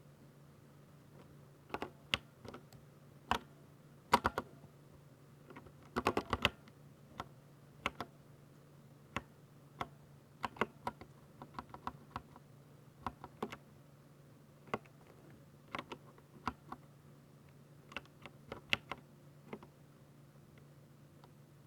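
Typing on a Ducky 60% mechanical keyboard with silver linear switches: uneven single key presses and a few short quick runs of strokes. The typing stops a couple of seconds before the end, leaving a faint steady hum.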